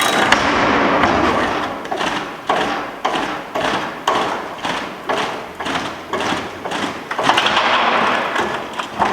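Tire baler door being released and raised over a freshly compressed tire bale: a run of heavy thumps and knocks over a rushing, clattering noise, loudest near the start and again about seven seconds in.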